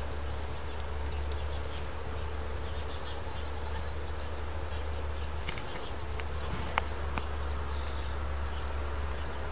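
Steady low buzzing hum and hiss of outdoor background noise, with a few faint sharp clicks a little past the middle.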